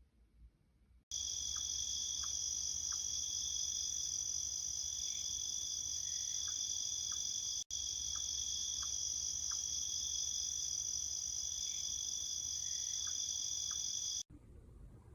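Recorded cricket-chorus nature sound from the alarm clock's built-in sleep sounds, played back through its speaker. A steady, high chirring starts suddenly about a second in. It breaks off for an instant halfway through as the short loop restarts, then cuts off abruptly near the end.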